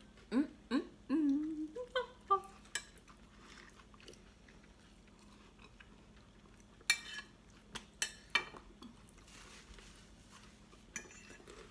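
People eating at a table: a few short hummed vocal sounds near the start, then quiet chewing, with knives and forks clicking against plates a few times later on.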